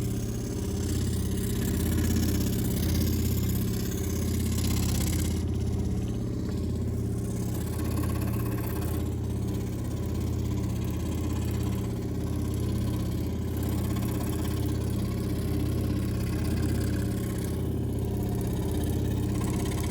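A woodworking machine's motor running steadily with a low, even hum. The hiss above the hum thins out about five seconds in and comes back a few seconds later.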